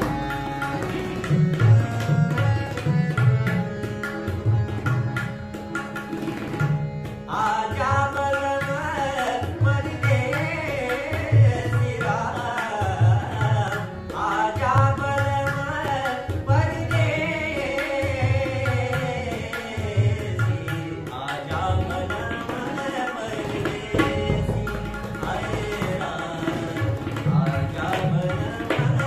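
Tabla and harmonium playing an Indian light-classical song. A male singer comes in about seven seconds in and sings for about fourteen seconds, then the tabla and harmonium carry on alone.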